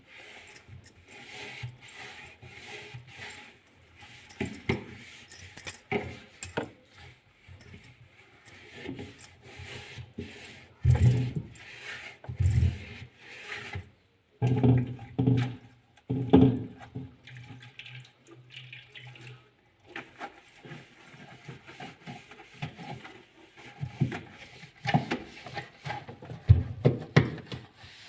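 Inside of a refrigerator being scrubbed and wiped by hand with soapy water: irregular rubbing and wet sounds, with scattered clicks and a few louder knocks.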